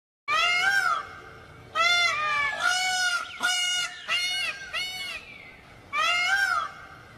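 A goose honking: a series of about seven loud, arched honks with short pauses, and a longer pause before the last one.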